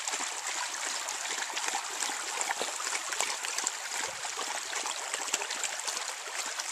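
Shallow creek water trickling and babbling steadily over stones, with many small ticks and splashes in the flow.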